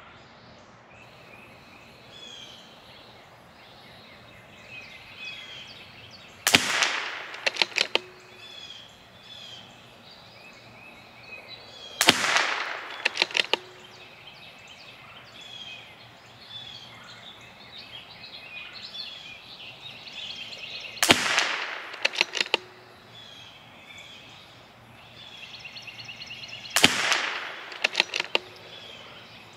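CZ 457 MTR .22 LR bolt-action rifle with a Lilja barrel firing ELEY Match: four single shots several seconds apart, each followed by a short run of sharp clicks as the bolt is worked. Birds chirp faintly between the shots.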